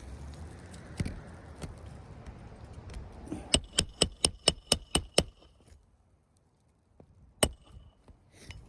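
Hammer driving a roofing nail through an asphalt shingle tab: a quick run of about eight ringing strikes, four to five a second, past the middle, with single strikes about a second in and near the end.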